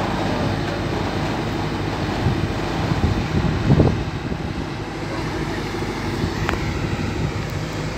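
Kobelco 220XD LC hydraulic excavator's diesel engine running steadily while the boom and arm are worked, with a louder surge about three and a half seconds in.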